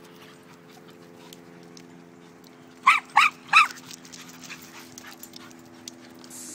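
A dog barking three times in quick succession about three seconds in, over a faint steady low hum.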